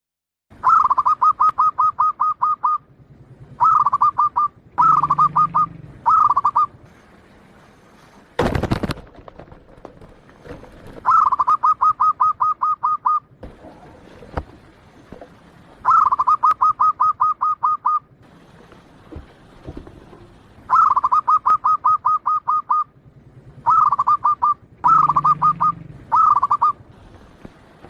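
Zebra dove (perkutut, Bangkok type) singing its rapid staccato cooing phrases, each a quick run of pulsed notes lasting up to about two seconds, repeated about ten times with short pauses. A single brief thump about eight and a half seconds in.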